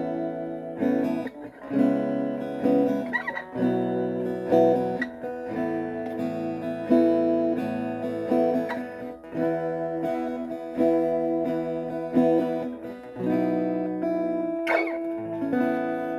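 Cort SFX acoustic guitar strummed in a slow run of chords, each left ringing before the next, played through a small Marshall amp. The last chord is left to ring out and fade near the end.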